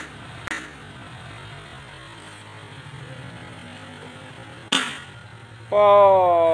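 A partly filled plastic bottle flipped onto a ceramic tile floor: a sharp hit as it lands at the start, a small bounce about half a second later, and another landing hit about three-quarters of the way in. Near the end, a loud long tone starts and slides slowly down in pitch.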